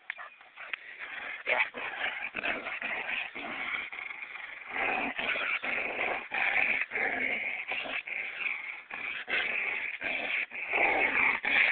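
A dog growling and whimpering almost without pause, broken by short gaps, louder from about five seconds in.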